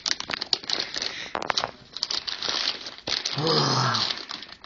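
Clear plastic bags of resin model-kit parts crinkling and crackling as they are handled, with a brief murmured voice about three seconds in.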